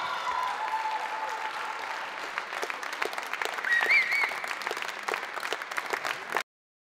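Audience applauding, with a short wavering whistle about four seconds in; the applause cuts off suddenly near the end.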